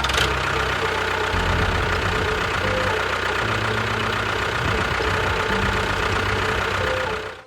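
Tractor engine running steadily, a rough, noisy engine sound that cuts in suddenly and cuts off suddenly at the end, with faint music underneath.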